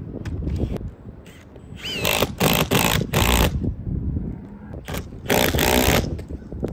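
Cordless drill/driver run in several short trigger bursts, fastening a QBase solar-panel roof mount down to the roof. The bursts start about two seconds in, with another run near the end.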